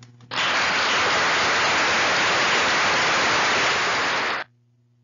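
A steady burst of hiss-like noise, like rain or static, lasting about four seconds and starting and stopping abruptly, over a faint low hum.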